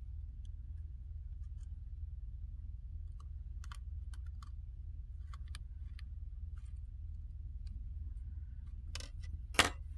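Small scattered clicks and taps of tweezers and parts against the opened MacBook Pro's aluminium case while antenna cables are refitted, with two sharper clicks near the end, the second the loudest, over a low steady hum.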